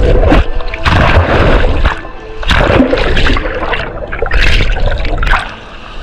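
Ocean waves surging and breaking over a camera held in the surf: loud rushing and splashing water in repeated surges. Music plays faintly underneath.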